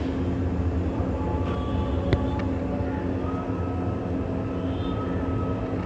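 Steady low background rumble with a constant hum, and a single sharp click a little past two seconds in.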